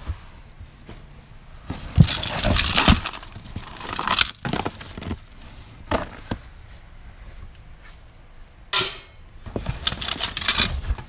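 Hand rummaging through a cardboard box of mixed small items: rustling of paper and plastic with clicks and knocks of hard objects, in several separate bursts.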